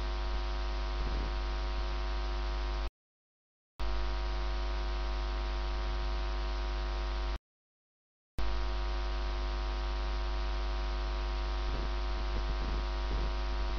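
Steady electrical mains hum with a buzz of many even overtones, cutting to dead silence twice for about a second each.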